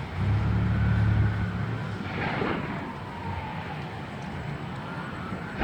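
A motor vehicle's engine running close by, a low hum that is loudest in the first two seconds and then fades away.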